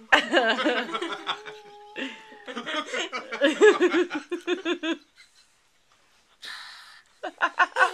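Toddlers giggling and laughing in quick high-pitched bursts, which break off about five seconds in, followed by a short breathy hiss, then start again near the end.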